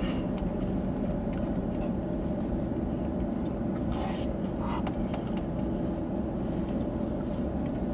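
Steady low hum of an idling car engine, with a couple of faint brief rustles near the middle.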